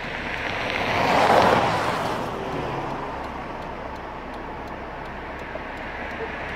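A road vehicle passing by: its noise swells to a peak about a second and a half in, then fades into steady traffic noise.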